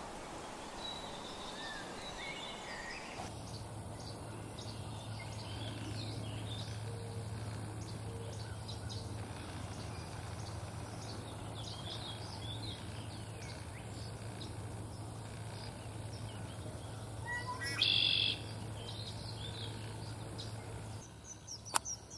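Wild birds chirping and calling in short scattered phrases, with one louder call about 18 seconds in. A steady low hum runs under most of it.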